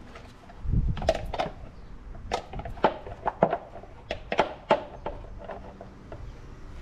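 Plastic shroud (flywheel cover) being set onto an outboard's powerhead and pressed into place: an irregular string of sharp clicks and knocks between about one and five seconds in.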